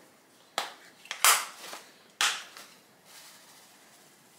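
Hand-held pepper grinder being twisted over a salad: three short crunching grinds of peppercorns in the first couple of seconds, the middle one the loudest.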